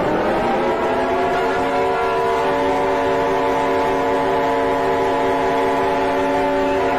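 Civil defence air-raid siren winding up: its pitch rises over the first second, then it holds a steady multi-tone sound, starting to wind down at the very end.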